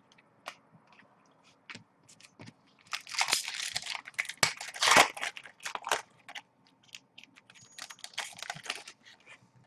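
Foil wrapper of a Topps Chrome trading-card pack being torn open and crinkled: irregular crackling with scattered sharp clicks, heaviest about three seconds in and again near the end.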